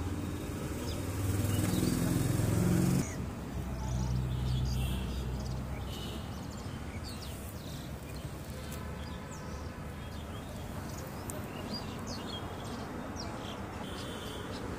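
Outdoor background ambience: a low hum for the first few seconds that cuts off suddenly, then scattered short bird chirps over a steady low rumble of distant traffic.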